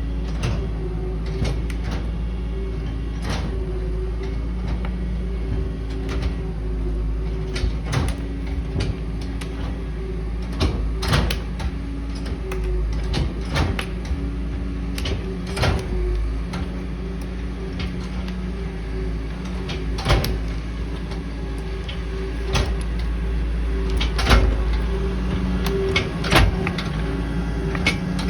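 An engine running steadily, with many irregular rattles and clunks over it, as a vehicle jolts along.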